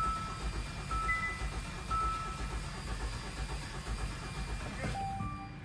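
A 2018 Hyundai Santa Fe 2.0 turbo four-cylinder is cranked over on its starter without firing, with the ignition coils disconnected for a compression test. The low rhythmic churning stops about five seconds in. The cylinder under test reads only 25 psi, a sign of a major compression loss such as a head gasket fault.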